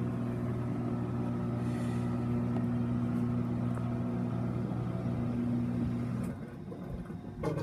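Whirlpool Cabrio high-efficiency washer's drain pump running with a steady buzzing hum, cutting off suddenly about six seconds in.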